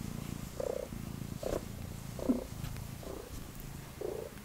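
Domestic cat purring steadily, a low pulsing rumble, with a few faint short sounds over it.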